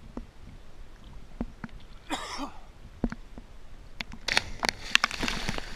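Lake water lapping and sloshing against a waterproof camera held at the surface: scattered small clicks and knocks, a brief rush of water about two seconds in, and a denser spell of splashing from about four seconds on.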